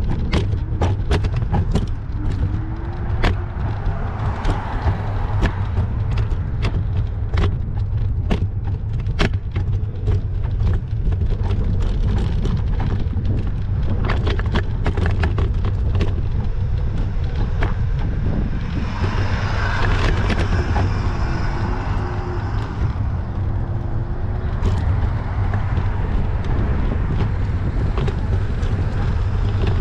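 Street traffic heard during a bicycle ride: a steady low rumble throughout, with frequent sharp clicks and rattles. A car passes with a rising and falling hiss about twenty seconds in.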